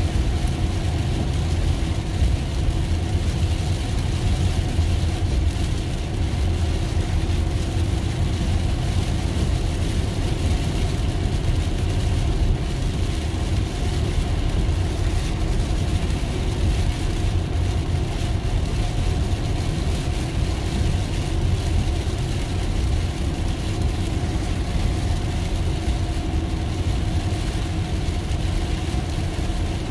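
Steady road noise inside a Tesla electric car driving in heavy rain: tyres hissing on the wet road and spray from the road, over a deep steady rumble with a faint hum.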